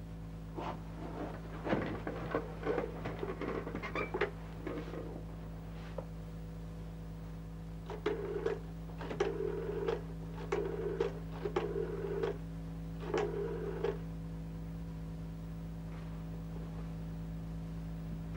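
Rotary-dial telephone being dialled: several short spells of clicking as the dial spins back after each digit, over a steady low hum. Some handling clatter of the phone comes first.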